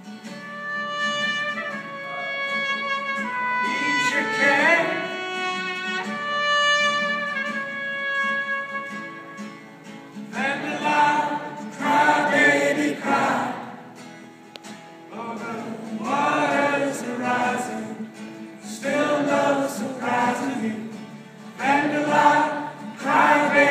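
A live unplugged performance: strummed acoustic guitars with singing, held, steady notes for the first ten seconds or so, then many voices singing together in phrases.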